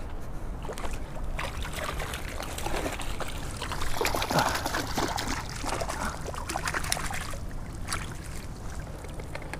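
Irregular splashing and sloshing of water as a hooked rainbow trout is brought in to the bank, loudest about halfway through.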